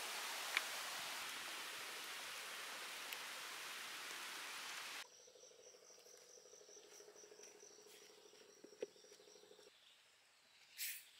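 A steady hiss that cuts off suddenly about five seconds in, then insects chirping in a fast, even, high-pitched pulse over a low hum. Near the end comes a short, sharp hiss as the cap of a plastic Sprite bottle is twisted open and the gas escapes.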